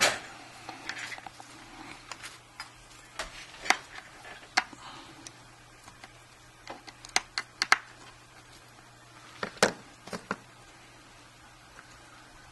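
Small, sharp clicks and taps of fingers and parts on an opened iPhone 5 as pieces are pressed and snapped into place, irregularly spaced, with a quick cluster of clicks a little past halfway.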